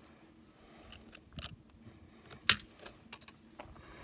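Glock 26 trigger being pulled slowly with a trigger pull gauge during a dry-fire weight test. A few faint handling clicks come first, then one sharp click about two and a half seconds in as the trigger breaks and the striker falls.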